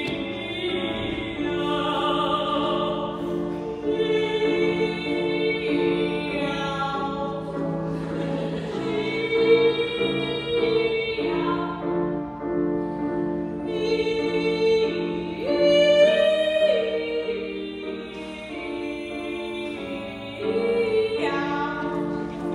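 A mezzo-soprano and a soprano singing a comic operatic duet on the cat-like syllable "miau", with grand piano accompaniment.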